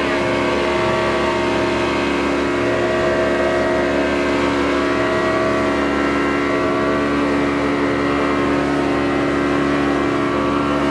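40-horsepower outboard motor running steadily at cruising speed. Water rushes past the hull under the engine's drone.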